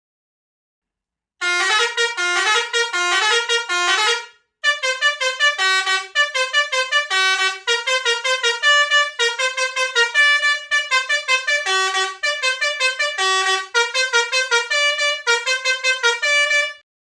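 Telolet multi-tone bus horn playing a quick melody of short notes. The tune starts after about a second and a half and pauses briefly about four seconds in.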